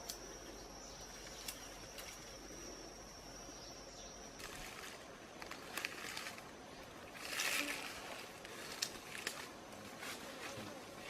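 An insect, likely a cricket, trilling steadily on one high tone until it stops about four seconds in. After that come scattered light clicks and a brief rustle a little past halfway.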